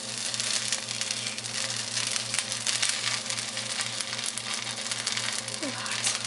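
Wet, pre-cooked rice noodles sizzling as they drop into a hot wok, a steady crackling hiss, over a constant low electrical hum.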